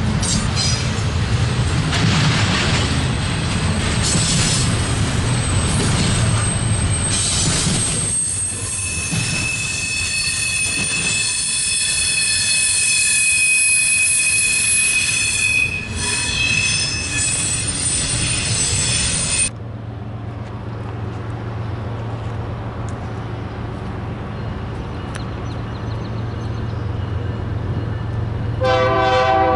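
Double-stack intermodal container train rolling past close by, its wheels squealing in long high-pitched tones through the middle. After a sudden cut there is the low steady hum of an approaching freight locomotive, and its horn starts to sound near the end.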